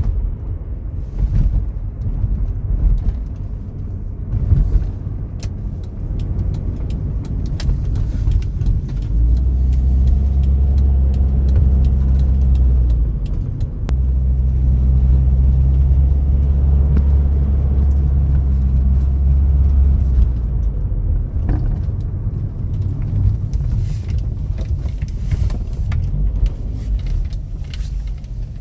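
1990 Toyota Sera's 1.5-litre four-cylinder engine running with a steady low drone, which grows louder and steadier through the middle, and light clicks and rattles over it. Fitted with a custom idle control valve, the engine seems to be holding idle.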